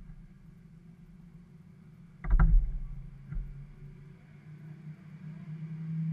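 A low steady hum, growing a little louder toward the end, with one loud thump about two seconds in and a lighter knock about a second later.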